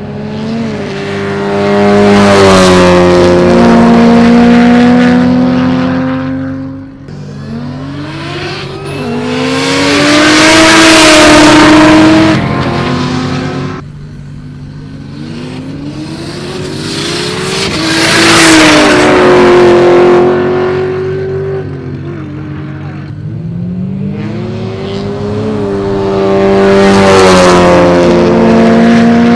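Race cars accelerating hard at full throttle past the trackside, four loud passes about eight seconds apart, each with the engine notes climbing in pitch as it nears and fading as it goes by.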